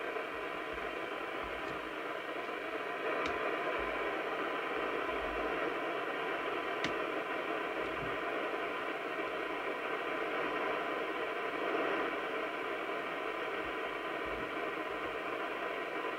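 Steady hiss of FM receiver noise from the loudspeaker of a Maxcom 6E UK FM CB transceiver. Its receive coils are being peaked for sensitivity against a weak signal-generator signal with the tone switched off. The hiss gets a little louder about three seconds in, and there are a couple of faint clicks.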